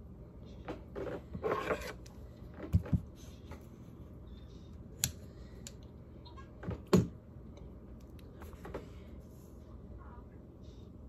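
Hands handling lead wires and electrical tape, with scissors snipping: rustling about a second in, then a few sharp clicks, the loudest about seven seconds in.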